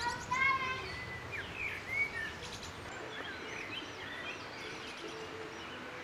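Outdoor woodland ambience with scattered bird chirps and calls over a steady background hiss, busiest in the first second.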